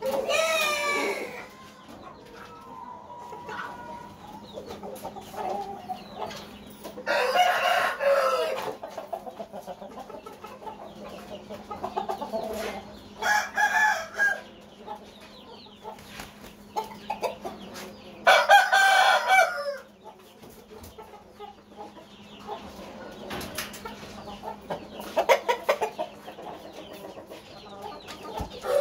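Aseel rooster crowing several times, each crow a second or two long and several seconds apart, with quieter clucking between crows.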